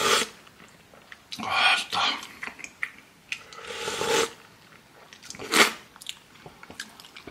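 Slurping spicy ramen broth from a wooden spoon: about four loud, hissing slurps, with a few light clicks near the end.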